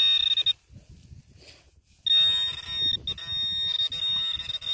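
Garrett Carrot pinpointer giving its high, buzzy alert tone as it senses metal in the dug hole. There is a half-second buzz at the start, then after a pause of about a second and a half a longer buzz that is broken once briefly.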